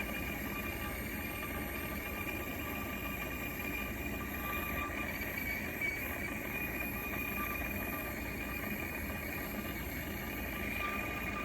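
Gas torch burning with a steady hiss, with a faint steady whistle-like tone in it, as it heats a silver piece for soldering.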